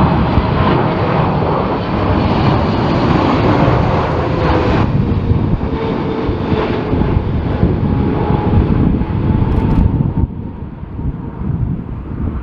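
Jet airliner's engines passing close, a loud rumble with a faint whine that drops slightly in pitch. The sound dulls about five seconds in and quietens about ten seconds in.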